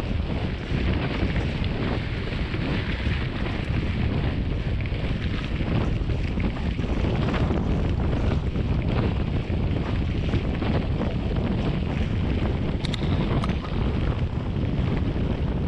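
Steady wind buffeting a bicycle-mounted action camera's microphone while riding, mixed with mountain-bike tyres rolling over gravel.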